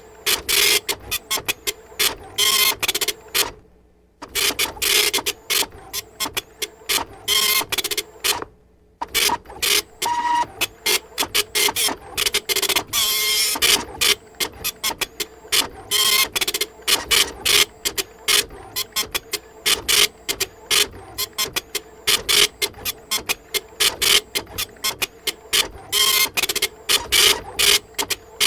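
A printer running: a rapid stream of short, sharp printing strokes over a steady hum, pausing briefly about four seconds in and again about nine seconds in.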